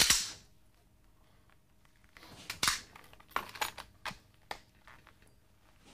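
9 mm SIG Sauer pistol and belt holster being handled. There is a quick rustle and click at the start as the pistol comes out, then a string of short clicks and rustles about halfway through as it is pushed back into the holster.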